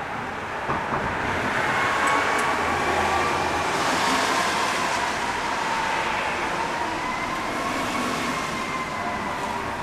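Fire truck siren wailing as the E-One Cyclone tower ladder approaches, its pitch slowly rising and falling over several seconds, over passing traffic.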